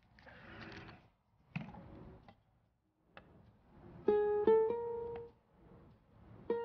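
Soft plucked-string background music: a few single notes picked one at a time, each ringing out, starting about four seconds in, with another short group near the end. Before it, only a few faint soft noises.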